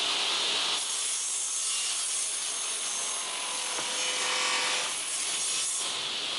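New wooden deck boards being worked by hand, a steady scraping rub on the wood that starts about a second in.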